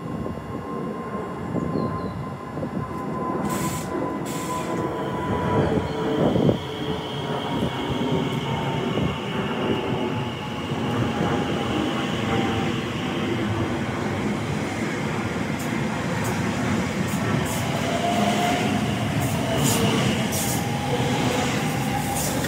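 Class 345 electric multiple unit running on the line, its steady rumble joined by a thin motor whine that slowly falls in pitch over the first dozen seconds. Short high hisses come a few seconds in and again in the last several seconds.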